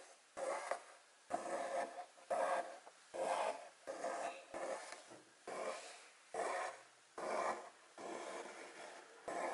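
Embroidery thread being pulled through cloth stretched taut in a hoop: a series of short rasping pulls, about one a second, each a fraction of a second long.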